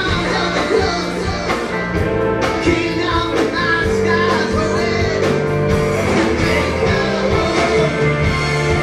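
Live rock band performing: a man singing over electric guitars, held sustained notes and drums.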